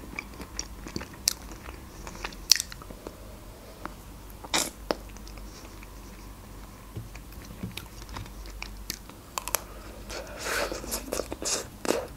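Close-miked eating sounds of a chocolate-coated, nut-covered Magnum ice cream bar: single sharp crunches of the chocolate shell with chewing in between, then a run of bites and crackling chewing near the end.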